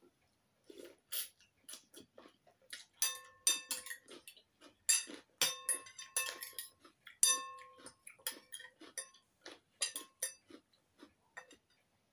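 Metal spoon and fork clinking and scraping against a ceramic bowl while eating: a run of sharp clinks, several ringing briefly, with softer clicks between.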